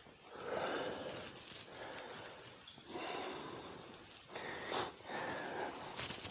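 A person breathing heavily, about five drawn-out breaths in a row.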